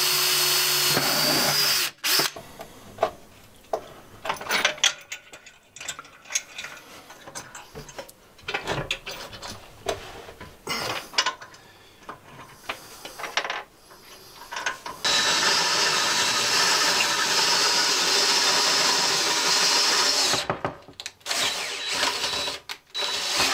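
Cordless drill boring a bolt hole into a stone tile hearth, stopping about two seconds in. Scattered clicks and knocks follow. The drill then runs steadily again for about five seconds, from about fifteen seconds in.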